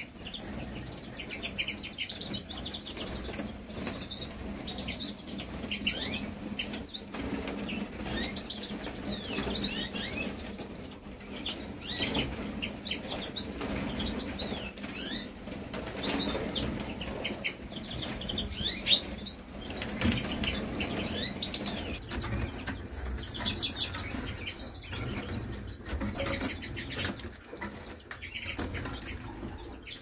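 A flock of canaries chirping and twittering, many short rising and falling calls overlapping, with a quick trill a little past the middle and wings fluttering.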